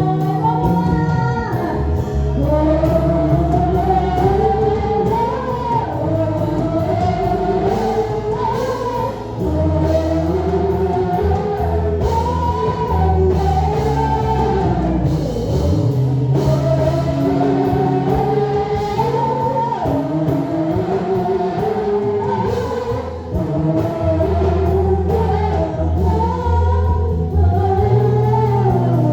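Gospel worship music: singing over a band with a steady bass line and drums.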